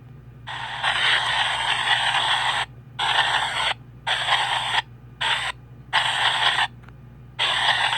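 PXB 07 spirit box sweeping through radio frequencies, giving choppy bursts of static and radio fragments. There are six bursts with short gaps between them; the first lasts about two seconds and the rest are briefer.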